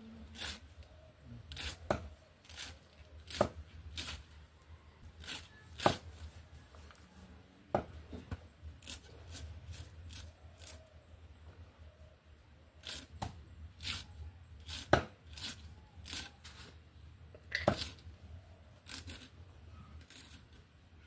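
A head of raw cabbage being shredded by hand against the fixed curved blade of a boti, a floor-mounted kitchen blade: crisp, irregular cutting strokes, several clearly louder than the rest.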